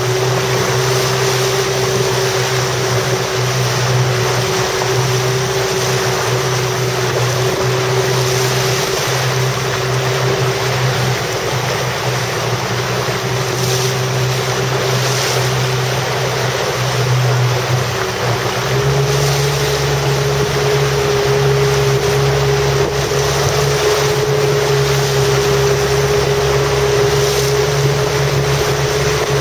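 Motorboat engine running steadily under way, with wind and water noise; the engine note rises slightly about 19 seconds in as it speeds up a little.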